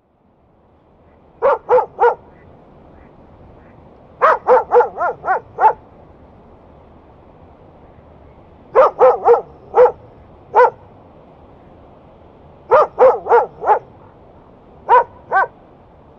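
Dog barking territorially, in five bursts of two to six quick barks a few seconds apart, over a steady low hiss.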